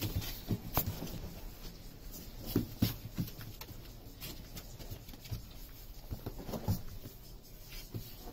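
Saint Bernard puppies scuffling and wrestling on a cardboard floor: scattered light taps and scratches of paws on cardboard.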